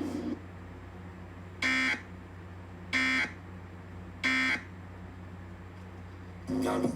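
Emergency Alert System end-of-message data tones from a radio: three short, harsh buzzy bursts about 1.3 s apart, the signal that closes the severe thunderstorm warning broadcast.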